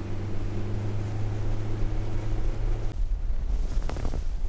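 Boat outboard motor running at speed, a steady hum over the rush of water. About three seconds in, the engine hum drops away suddenly, leaving wind buffeting the microphone and water rushing and splashing past the hull.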